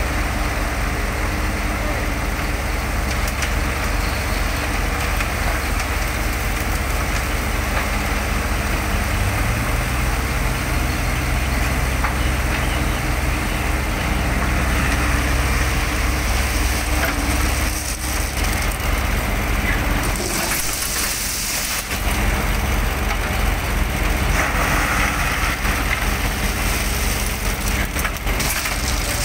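Diesel engine of a Hyundai compact crawler excavator running under load as it digs gravel, together with the idling engine of a concrete mixer truck. The engine note steps up about nine seconds in.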